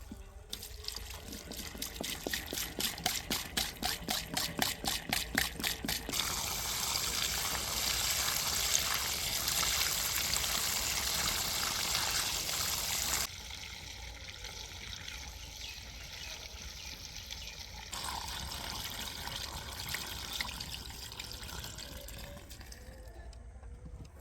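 Diesel earth-moving machinery running with a steady low rumble. A fast run of regular clicks is followed by a loud rushing, pouring noise like wet soil sliding off a backhoe bucket. The sound drops abruptly about halfway through and steps up again later.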